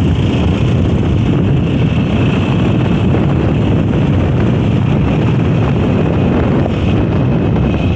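Steady wind rushing over the microphone of a motorcycle moving at speed, with the bike's engine and tyre noise underneath.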